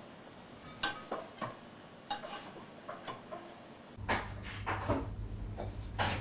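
Scattered metallic clinks and knocks of hands-on maintenance work on a railcar. About four seconds in, a low steady hum comes in and the knocks grow louder and closer together.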